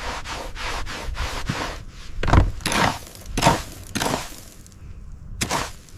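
Clearing and demolition work on wood: a quick run of short scraping strokes, about four a second, then several louder separate wooden knocks, the last near the end.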